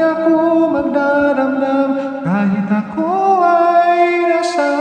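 A man singing long, held notes over a karaoke backing track, starting a new phrase about two seconds in that rises into another long note about a second later.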